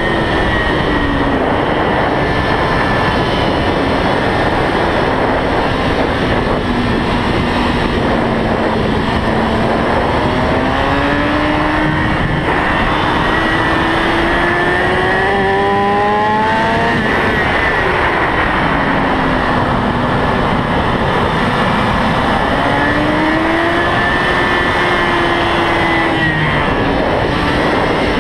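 Kawasaki ZX-6R sportbike's inline-four engine at speed on a race track, heard from an onboard camera under heavy wind noise. The revs climb steadily for several seconds, drop sharply about halfway through, then climb and fall again near the end.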